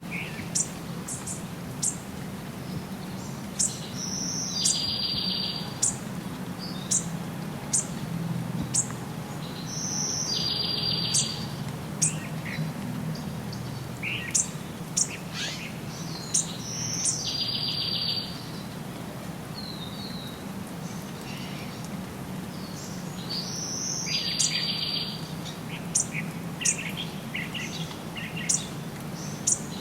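Birds chirping and singing: one song, a short high note followed by a fast buzzy trill, repeats four times about every six and a half seconds, among many brief high chirps from other birds. A steady low hum runs underneath.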